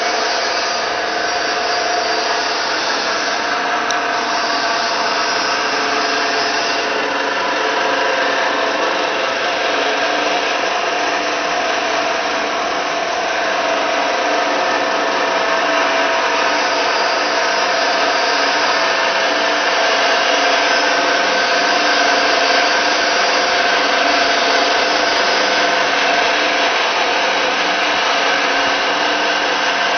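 Electric motor and gearbox of a plough mixer running steadily: a continuous mechanical hum with several held tones.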